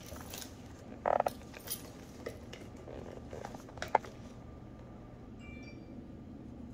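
Plastic handling noises from a bottle of rubbing alcohol and its cap: a few knocks and light clicks, ending in one sharp click about four seconds in as the cap comes open.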